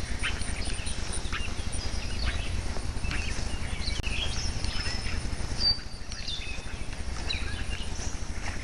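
Small birds chirping and twittering repeatedly, short quick calls over a steady low rumble. A single sharp click a little over halfway through.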